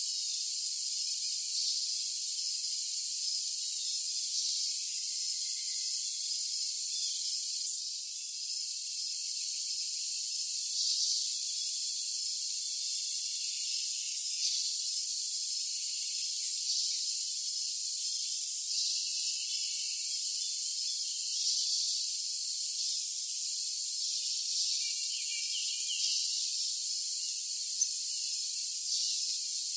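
Crickets trilling as a dense, steady high hiss with a thin steady high tone through it, and short songbird chirps every two or three seconds. Only high pitches are heard; the low end is cut away.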